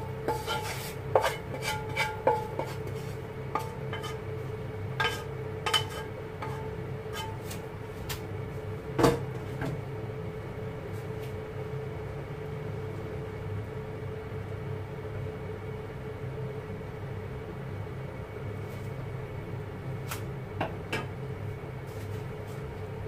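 Wooden spatula scraping and tapping cooked shrimp out of a pan onto a plate: scattered knocks and clicks with brief metallic ringing, the loudest knock about nine seconds in. After that mostly a steady low background hum, with a couple of light taps near the end.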